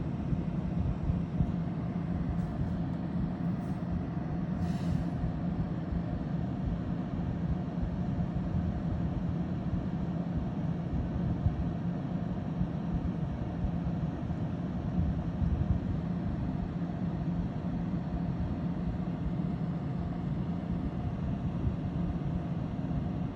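Steady low rumble of a running engine with a constant low hum, and a few faint short high sounds about three to five seconds in.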